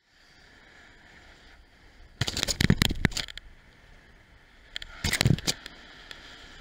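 Bicycle ride heard through a helmet-mounted camera: steady road and wind noise, with two bouts of loud rattling clatter, about two seconds in and again about five seconds in, as the bike and camera jolt over bumps.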